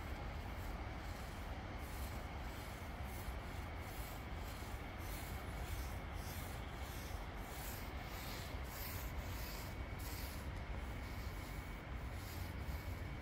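Paint rollers on extension poles rolling liquid sealer over concrete slabs: repeated swishing, rubbing strokes about every half second, over a steady low hum.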